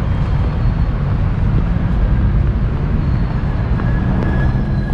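Steady low rumble of city street traffic, with a thin high tone coming in near the end.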